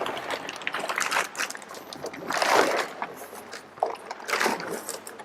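Plastic packaging wrap rustling and crinkling, with small knocks and scrapes, as a plastic-wrapped folding mobility scooter is pulled out of its box. There are two louder rustling swells, about two and a half and four and a half seconds in.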